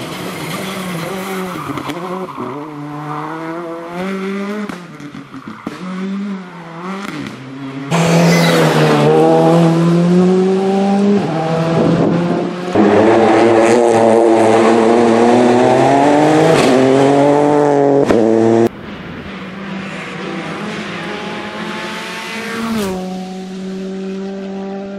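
Rally cars on a tarmac special stage, their engines revving hard and dropping in pitch through gear changes. The loudest run is a car at full throttle close by in the middle stretch, and it cuts off suddenly a little after the middle where the footage is edited.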